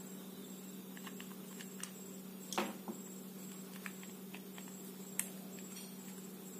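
Small plastic clicks and taps as a screwdriver works at a screw in the wheel of a plastic toy truck and the parts are handled. The loudest clicks come about two and a half seconds in and again near five seconds, over a steady low hum.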